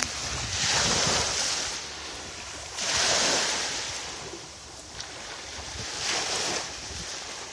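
Small waves washing onto the shore, in three surges of hiss that swell and fade a few seconds apart.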